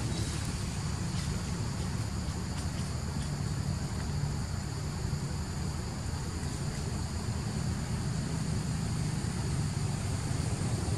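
Steady outdoor background: a continuous low rumble with insects trilling steadily high above it.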